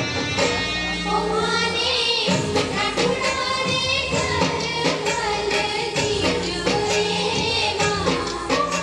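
Music for a Rajasthani Ghoomar folk dance: female singing over a steady drum beat.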